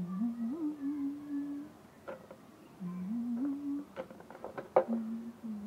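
A woman humming a slow tune in three short phrases of held notes that step upward, with a few sharp clicks in between, the loudest about five seconds in.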